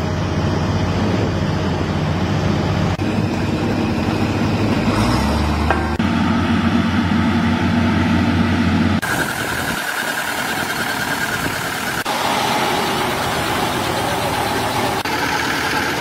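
Construction machinery engines running on a building site: a steady low drone that changes abruptly several times as the sound jumps between clips, with a higher steady whine in the later part.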